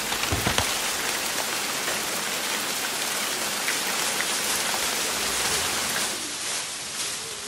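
Rain sound effect: a steady, dense hiss of heavy rain falling on a surface, with a few light pattering clicks.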